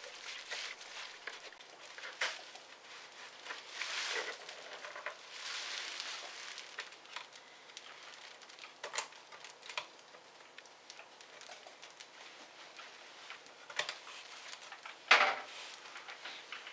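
Laptop parts being handled during assembly: plastic case panels and the motherboard rustling, scraping and clicking as they are fitted and their small cable connectors are pressed in, with one sharper knock about fifteen seconds in.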